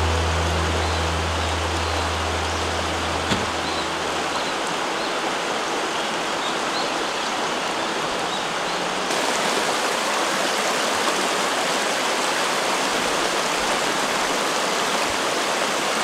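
Rushing water of a mountain stream, a steady full wash of noise. About nine seconds in, a cut brings a brighter, hissier water sound. Low sustained music notes fade out during the first few seconds.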